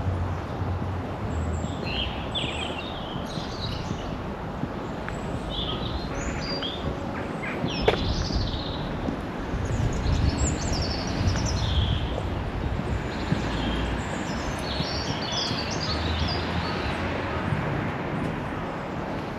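Small birds chirping and singing in short, scattered phrases over a steady low outdoor rumble, with a single sharp click about eight seconds in.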